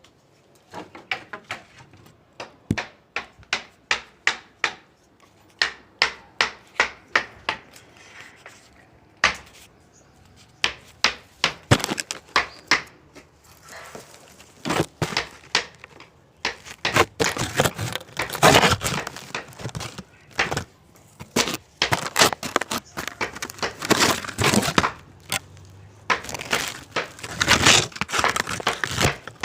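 Hand woodworking: a run of sharp taps on wood about two a second, then from midway longer, rougher scraping strokes in bursts.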